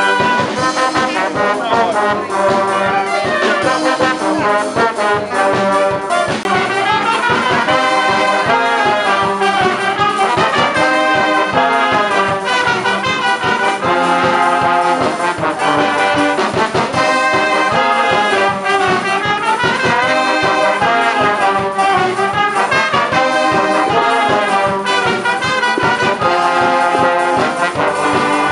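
Combined fire brigade brass bands playing a tune together, with trumpets, trombones, tubas and saxophones. The music runs on without a break.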